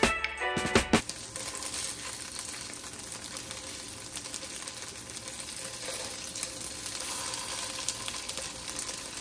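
Music for about the first second, then tofu cubes frying in oil in a pan: a steady sizzle with many fine crackles.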